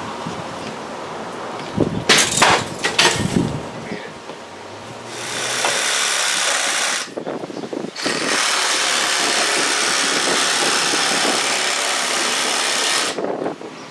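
A power tool cutting into a sheetrock wall, running steadily in two stretches of several seconds each, the second longer, after a few sharp knocks against the wall.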